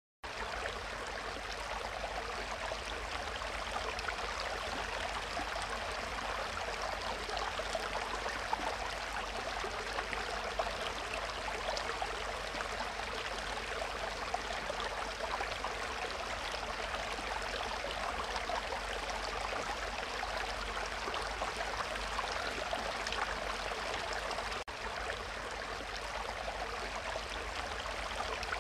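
Steady bubbling and splashing of water circulating in a large aquarium, with a low hum underneath. It breaks off for an instant about three-quarters of the way through.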